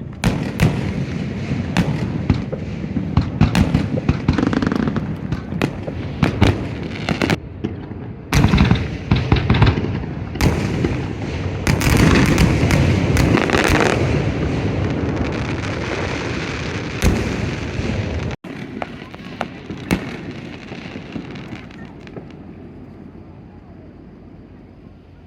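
Aerial fireworks bursting: a run of sharp bangs with crackling, densest and loudest around the middle, then thinning out and fading toward the end.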